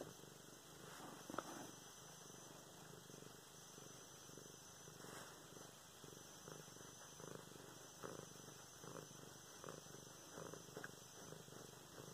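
Domestic cat purring softly while its cheek and chin are scratched, with faint rustling and small clicks of fingers in fur and bedding.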